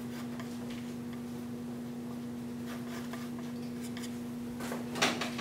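Palette knife scraping acrylic paint across a small wooden panel in faint short strokes, over a steady low hum. A short louder noise comes near the end.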